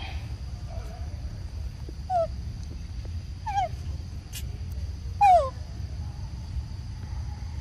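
A young monkey giving three short calls that each fall in pitch, a second or so apart, the last the loudest. A steady low rumble of wind on the microphone runs underneath.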